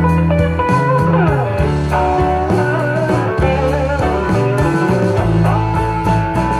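Recorded blues-style guitar music, with bent and sliding notes over a bass line, played back through a single-ended 845/211 triode tube amplifier.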